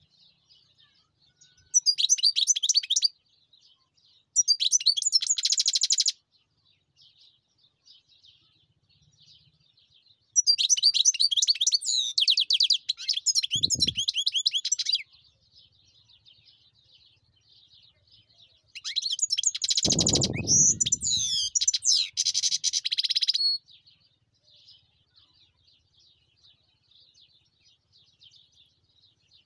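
European goldfinch singing in bursts of fast, high, tinkling twitters, four loud phrases of a few seconds each with softer twittering between. Two brief low noises sound underneath, a little before and a little after halfway.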